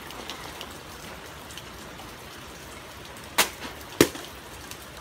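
Steady rain falling, with two sharp hits a little over half a second apart near the end, the second the louder, as a sword swing strikes a can.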